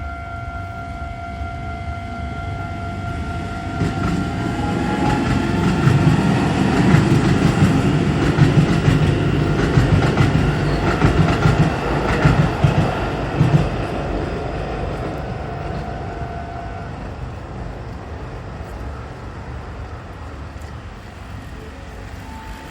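Japanese level-crossing alarm ringing steadily while an electric commuter train passes over the crossing. The train's heavy rumble and clacking wheels build up a few seconds in, are loudest around the middle, then fade away. The alarm stops about three quarters of the way through.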